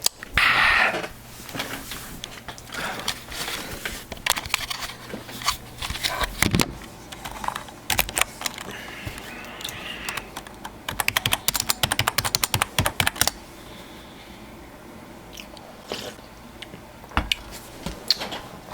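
Irregular clicking and tapping, with a fast, even run of about nine clicks a second lasting a couple of seconds past the middle.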